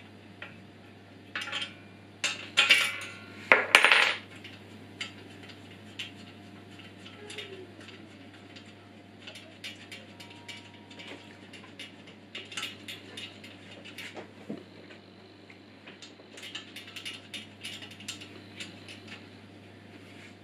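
Small metal tool and parts clinking and tapping against a metal angle grinder stand during assembly. A loud clatter of clinks comes in the first few seconds, then lighter scattered ticks follow.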